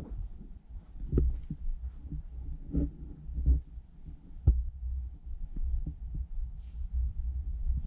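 Irregular dull thumps and low rumbling close to the microphone, with a few sharper clicks, as a puppy scampers on carpet around a floor-level camera.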